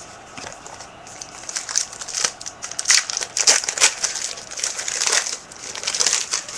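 Trading-card pack wrapper crinkling and crackling in the hands, in irregular bursts that start about a second and a half in and stop just before the end.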